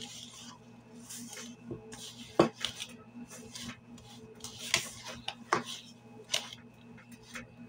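Wire whisk clinking and scraping against a stainless steel mixing bowl as it stirs a stiff flour batter, in irregular strokes; the sharpest knock comes about two and a half seconds in.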